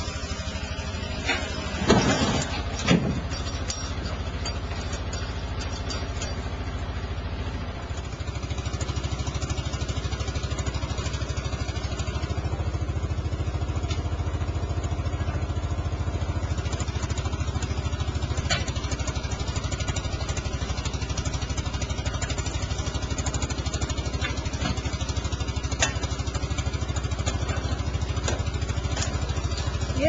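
Boom truck's engine running steadily at idle, picking up slightly about eight seconds in. Two loud bangs stand out about two and three seconds in.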